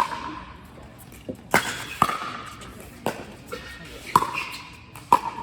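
Pickleball rally: paddles striking the plastic ball, a series of sharp pops roughly once a second, several with a brief ringing tone.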